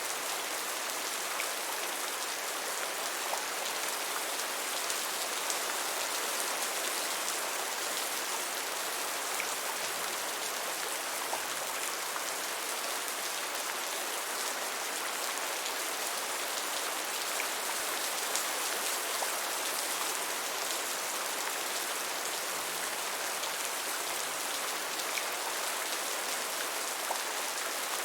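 Steady rain falling, an even hiss with faint scattered drop ticks and no thunder.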